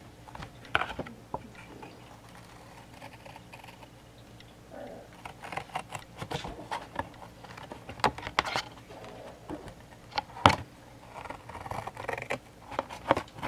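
Scissors working along the cardboard of a Funko Pop box, with irregular clicks, scrapes and crinkles as the box is handled and cut. The sharpest click comes about ten and a half seconds in.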